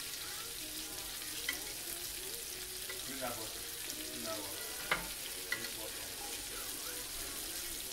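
Pieces of lamb suya frying in canola oil on a grill, a steady sizzle, with a few sharp clicks of a utensil, the loudest about five seconds in.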